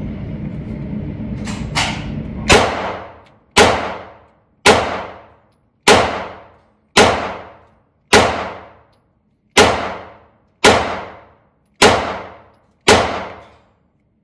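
FMK 9C1 Gen 2 9mm pistol fired ten times at a steady pace of about one shot a second, each report ringing off briefly in an indoor range booth. Two fainter bangs come just before the first shot. The last shot empties the magazine and the slide locks back.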